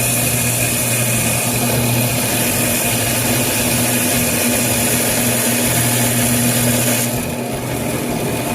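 Water-cooled glass band saw running, a steady motor hum under a high hiss; the hiss thins about seven seconds in.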